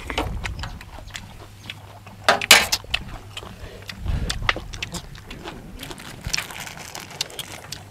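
Eating sounds: metal spoons clicking and scraping on a metal tray, with chewing and slurping, loudest about two and a half seconds in. A plastic bag of peanuts rustles near the end.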